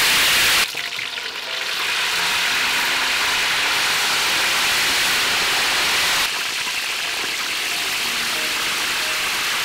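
Chicken drumsticks deep-frying in hot oil in a steel wok: a loud, steady sizzle and bubbling. It is loudest in the first moment and eases slightly about six seconds in.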